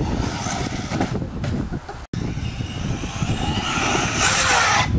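Electric brushless motor of a DHK Hunter RC short-course truck running as it is driven over a dirt trail, with a steady low rumble of handling and wind noise from the moving camera. Near the end there is a hiss of tyres on dirt and a whine that falls in pitch as the truck slows.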